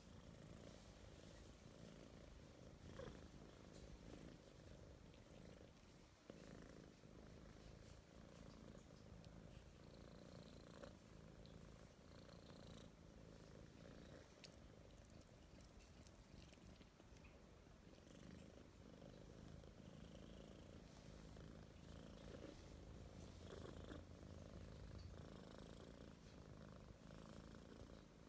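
Soft, steady purring of a Siamese-type kitten being stroked, with a couple of small clicks.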